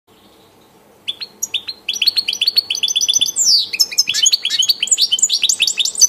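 European goldfinch singing: a fast, unbroken twittering run of high chirps, trills and slurred whistles that starts about a second in.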